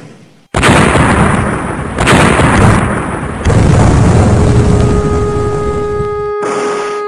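A large explosion blasts in suddenly about half a second in. It swells again twice, near 2 and 3.5 seconds, and rumbles on loudly until it cuts away near the end. A held musical note comes in under it about four seconds in.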